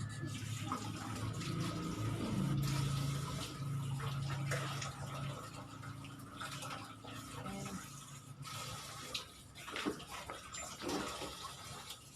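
Water running in a steady rush, with a low hum underneath that fades after about five seconds and a few light clicks near the end.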